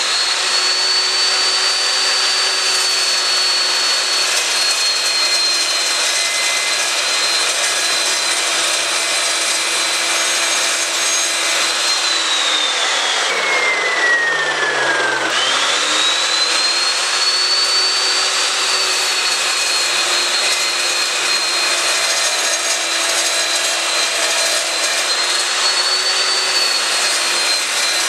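Evolution S355CPSL cold-cut metal chop saw, with an 80-tooth aluminium blade, cutting through 1-1/2-inch square aluminium bar: a loud, steady high whine over cutting noise. Its pitch sags for a few seconds about halfway through, then climbs back.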